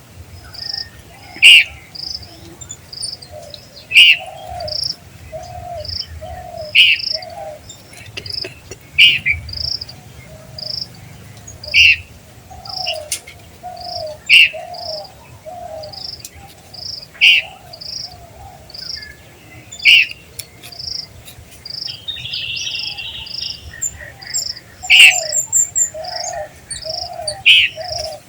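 Fledgling bird screaming: a loud, sharp call repeated about every two to three seconds. Underneath runs a steady train of short high chirps, about one and a half a second, and runs of lower pulsed notes.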